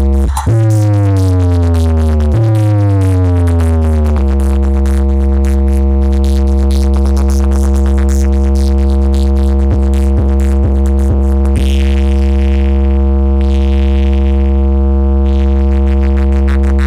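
Huge DJ speaker stack playing a bass 'vibration' track at full power: two falling deep-bass sweeps in the first four seconds, then a steady deep bass tone held to the end.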